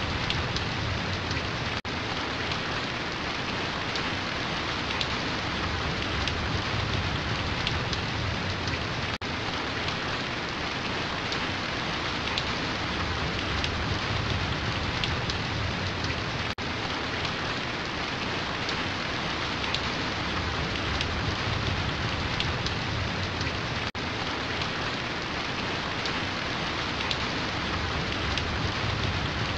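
Steady heavy rainfall: a dense, even hiss of raindrops on surfaces, with a brief dip in level about every seven seconds.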